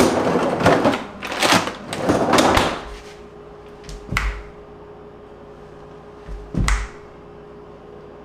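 Bottom freezer drawer of a stainless French-door refrigerator slides and shuts as a pint container goes in, then two sharp finger snaps about two and a half seconds apart over a faint steady hum.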